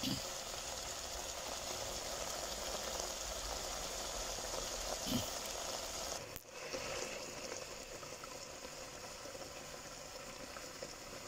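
Pineapple chunks simmering in sugar syrup in a pot, a steady bubbling and fizzing as the syrup boils down toward a glaze. The sound breaks off for a moment about six seconds in, then carries on a little quieter.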